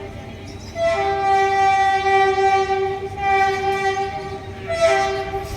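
Train horn sounding in three long, steady blasts, the first about two seconds long, over a low rumble.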